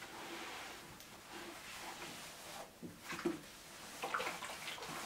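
A steam iron hisses faintly while a woman smooths and irons denim jeans, with a few soft knocks and fabric rustles as the iron is handled, about three seconds in.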